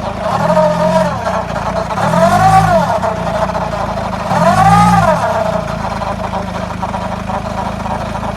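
Mercedes A180 CDI's four-cylinder diesel engine revved three times, each rise and fall in pitch lasting about a second, then settling back to a steady idle. This is the weird noise that the owner suspects comes from the engine or the CVT gearbox.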